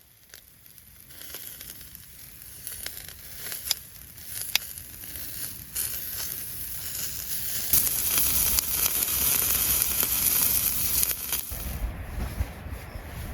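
A crackling, hissing noise with scattered sharp clicks that grows steadily louder, joined by a low rumble about eleven seconds in.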